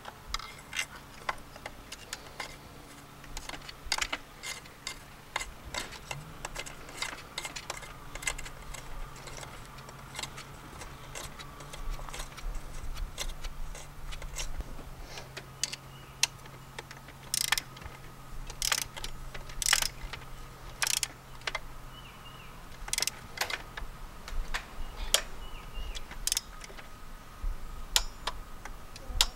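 Hand tools working on the BMW N54 inline-six's spark plugs and coil packs: irregular ratchet clicks and light metallic clinks of socket and parts, some louder clacks in the second half.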